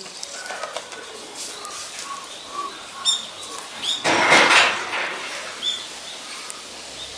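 Small birds chirping with short high notes on and off, with a brief rustling burst about four seconds in.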